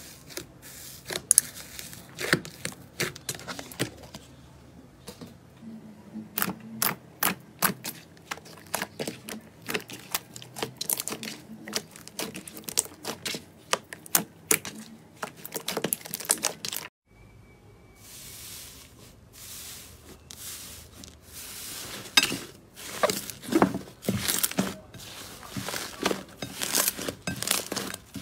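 Hands squeezing and kneading slime, giving a fast, irregular run of sharp crackles and clicks as trapped air pops. After a brief gap about two-thirds of the way in, a different slime is worked with similar crackling, coming in denser clusters.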